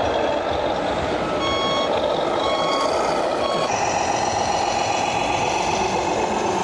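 Electronic reversing beeper of a radio-controlled model truck's sound module: three beeps about a second apart, over steady hall noise. After the beeps stop, a steady hum with several tones carries on.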